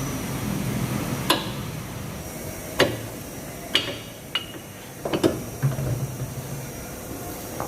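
Irregular sharp metallic clinks and knocks, about seven spread over several seconds, a few ringing briefly: hand tools and brake parts being handled during brake reassembly.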